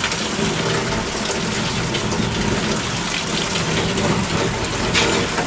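Tap water running steadily into a stainless-steel sink, with a few light knocks of a knife on a wooden chopping board.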